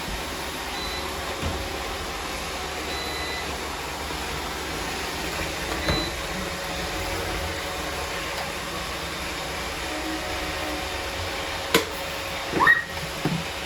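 Roomba robot vacuums running, a steady motor and brush hum with a few faint short high tones. A sharp click comes near the end.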